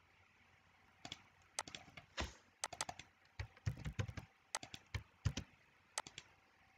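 Faint, irregular clicking of a computer keyboard and mouse, a run of quick taps over about five seconds as a password is copied and entered into a login field.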